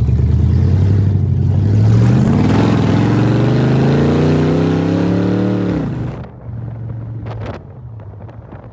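Car engine fitted with a 90 mm throttle body, revving. Its pitch climbs steadily for about four seconds, then drops suddenly as the throttle is let off, and it settles back to idle.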